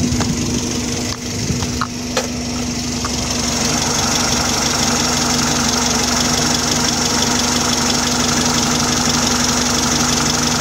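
Car engine idling steadily at about 700–750 rpm, an even, steady idle. A few light clicks sound in the first couple of seconds, and the engine gets slightly louder about three seconds in.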